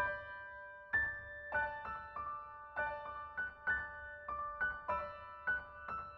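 Slow, gentle piano music: single notes and soft chords struck about every half second to a second, each left to ring and fade.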